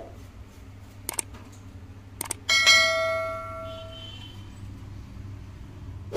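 Subscribe-button sound effect: two mouse clicks about a second apart, then a bright bell ding that rings out for about a second and a half, with a fainter higher chime as it fades. A low steady hum runs underneath.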